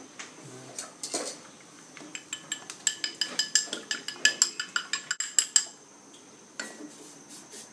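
Chopsticks beating a raw egg in a porcelain bowl: a fast run of light clinks against the bowl, about five a second, lasting a few seconds before stopping.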